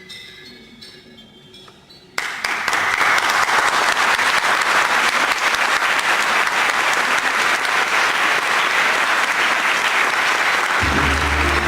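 A few soft music notes fade, then about two seconds in an audience suddenly breaks into dense, sustained applause. A low, held musical tone comes in under the clapping near the end.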